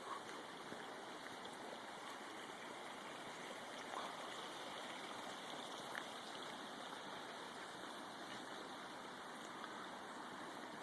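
Creek water running steadily, a continuous rushing sound with faint gurgling.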